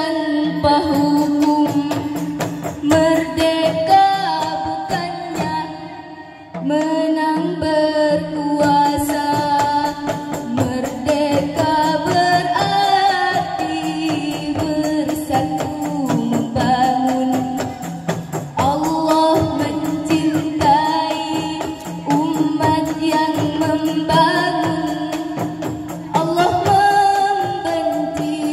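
A women's zamrah group singing together into a microphone over a steady beat of hand-struck frame drums, with a brief lull about six seconds in.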